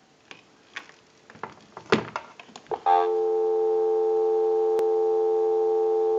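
A few sharp clicks of the handset and switch box, then about three seconds in a telephone dial tone comes on: a steady, unbroken two-tone hum, the North American 350 + 440 Hz dial tone, holding without change.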